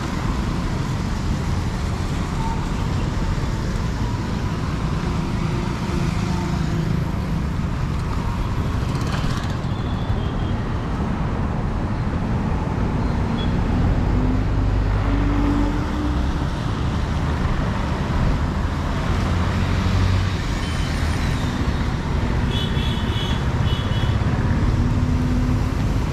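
Steady road traffic passing: scooters, motorbikes and cars running by, with tyres hissing on the rain-wet road.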